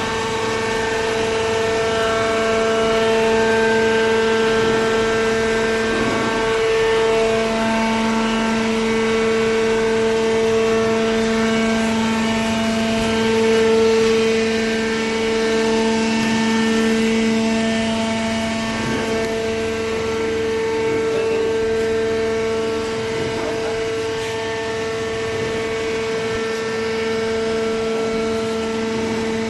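Hydraulic power unit of a vertical baler running with a steady whine; a lower second tone joins about a quarter of the way in.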